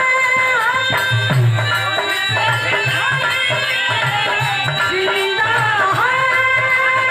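North Indian folk song: a woman's voice holding long, wavering notes over steady hand-drum rhythm and instrumental accompaniment.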